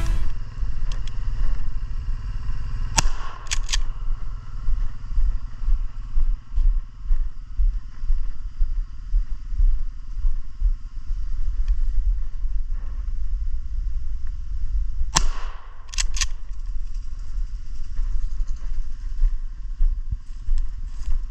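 Low rumble of wind on the microphone, broken twice by a sharp shotgun report, about three seconds in and again about fifteen seconds in, each followed within a second by two quick clacks: a .410 shotgun fired at grouse and its action worked.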